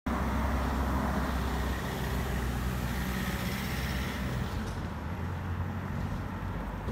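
Road vehicle running by: a low engine rumble with tyre hiss, the hiss easing off about five seconds in.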